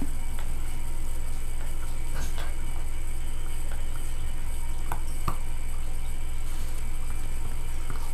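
Steady low hum, with a few faint clicks from a puppy chewing a rubber ball.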